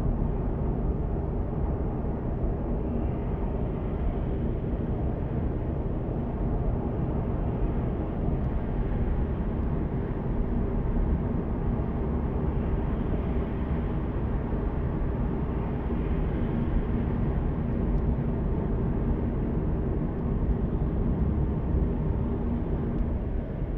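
Car driving at motorway speed, heard from inside the cabin: a steady rumble of tyres on the road and engine hum, without change.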